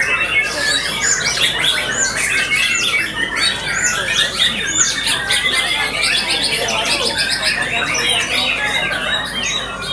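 A dense chorus of white-rumped shamas singing at once, as in a shama singing contest. Many loud, overlapping songs are built from high, arched whistled notes and fast trills.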